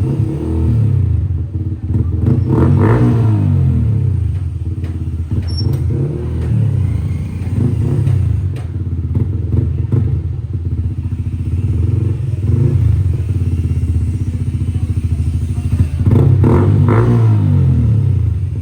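Yamaha MT-15's single-cylinder engine running through an aftermarket Akrapovic exhaust while stationary, idling with repeated throttle blips that rise and fall in pitch; the clearest blips come about three seconds in and again near the end.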